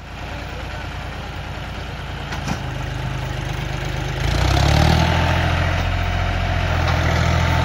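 Diesel tractor engine running. About four seconds in it comes up to higher power, gets much louder and stays there.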